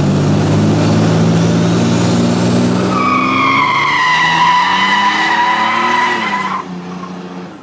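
Chevrolet S10 Blazer's engine revving up steadily while its tyres spin. From about three seconds in, a loud, steady tyre squeal joins it. Both drop away suddenly after about six and a half seconds as the truck pulls off.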